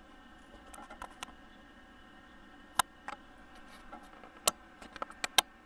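Small, sharp plastic clicks and taps from hands handling a 1/6-scale action figure and its tiny walkie-talkie accessory, irregular and scattered. The loudest come about three and four and a half seconds in, with a quick run of clicks near the end.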